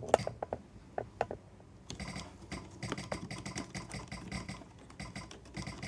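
Romer-G key switches on a Logitech G810 mechanical keyboard being pressed: a few separate key clicks, then from about two seconds in a rapid, continuous clatter of keystrokes. The switches have been cleaned and lubed and are being tested.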